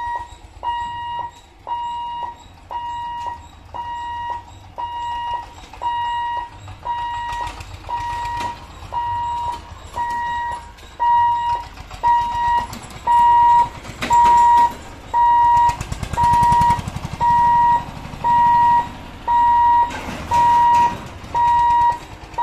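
Railway level-crossing warning beeper sounding while the boom barriers lower, the signal that a train is approaching and the gate is closing. It is an even electronic beep, about four beeps every three seconds, getting louder about halfway through. A vehicle's engine rumbles past midway.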